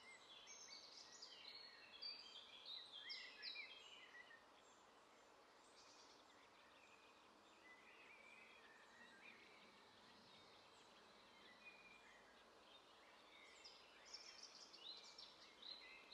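Faint woodland ambience with small birds chirping and trilling, high and scattered, busiest in the first few seconds and again near the end.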